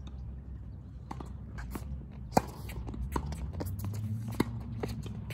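Tennis rally on a hard court: a series of sharp pops as rackets strike the ball and it bounces, the loudest about two and a half seconds in.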